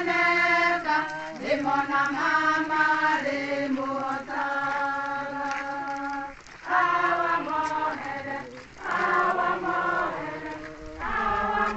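A crowd of men and women singing together as they walk. The song comes in sustained phrases of about two to three seconds, with short breaks for breath between them.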